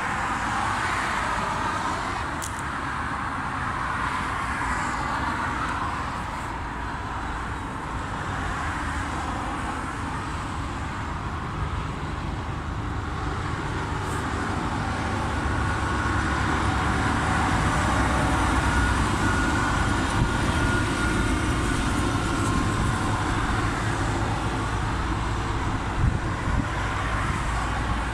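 Strong sandstorm wind blowing against the phone's microphone: a steady rushing and low buffeting rumble that grows louder in the second half.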